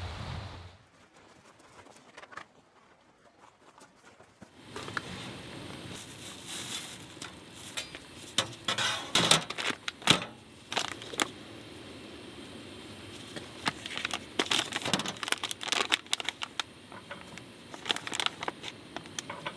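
Near silence for the first few seconds, then from about five seconds in an irregular run of crinkling and sharp clicks, the sound of something being handled close by.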